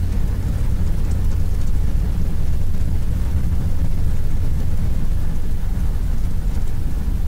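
Airbus A330 accelerating down the runway at takeoff thrust, heard inside the cockpit: a steady deep rumble of the engines and the wheels rolling on the runway.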